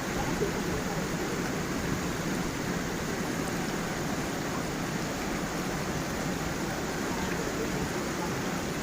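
Gentle forest stream and small waterfall, water flowing and splashing in a steady, even rush.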